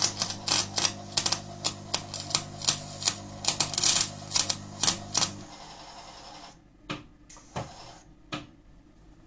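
Cebora Snap-MIG welder's arc crackling and popping irregularly on angle iron over the machine's steady hum, cutting out about five and a half seconds in; the owner says the wire stopped feeding because the small reel ran out. Three sharp knocks follow near the end.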